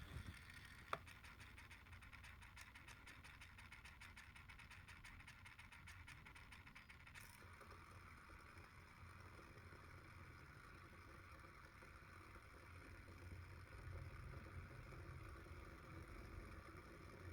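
Faint autofocus motor noise from a Tamron 70-200mm lens, the noise the owner calls an issue: a click about a second in, then fine rapid ticking for several seconds, then a steady faint whine.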